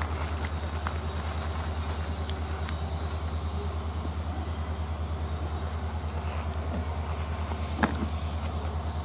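Steady low mechanical hum with a fast, regular pulse, and a single sharp knock near the end.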